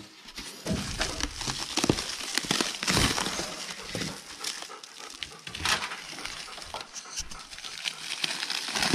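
Plastic wrapping being crinkled and torn off a new fuel cell unpacked from its shipping box, a steady run of irregular crackles and rustles.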